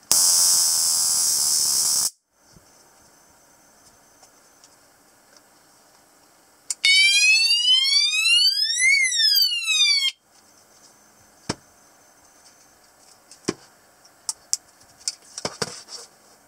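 TW-809 stun gun baton: an electric arc crackles across its tip electrodes for about two seconds. After a pause its built-in alarm sounds a loud siren tone that sweeps up and back down over about three seconds, and a few sharp switch clicks follow near the end.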